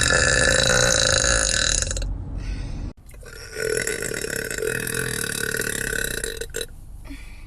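Long, drawn-out human burps. The first cuts off suddenly about three seconds in, and another starts about half a second later and runs until near the end.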